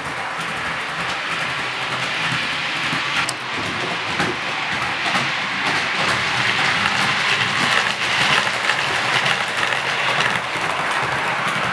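OO gauge model trains running on the layout: a steady rolling rattle of small wheels on the track, a little louder in the second half as a train passes close by.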